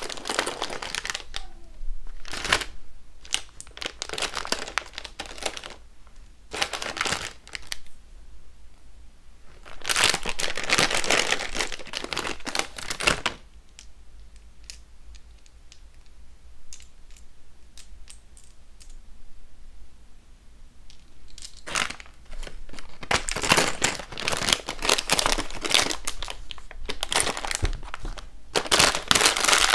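Clear plastic packaging bag crinkling in repeated bursts as it is opened and handled. In a quieter stretch around the middle, small charms tick faintly against each other in the hand.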